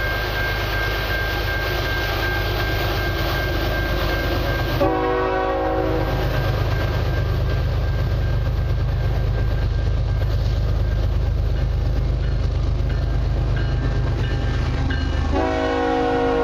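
Approaching CN freight train led by GE Evolution Series diesel locomotives: a steady low engine rumble builds as it nears, and the lead unit's air horn sounds a short blast about five seconds in and a longer blast starting near the end as it passes. A crossing bell rings steadily through the first part.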